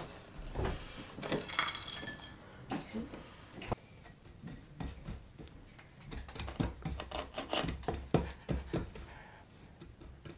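Small hands pressing graham cracker crumbs into a glass pie dish: a run of soft pats and taps, with light clinks of fingers on the glass.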